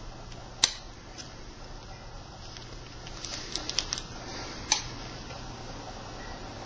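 A few light, sharp clicks and taps: one about half a second in, a quick run of four or five around the middle, and another about a second later, over a faint steady hum.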